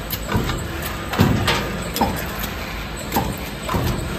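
CNC swing shear line for transformer core laminations running, its punch and shear heads clacking repeatedly as they cut the steel strip, roughly two strokes a second, over a steady machine hum.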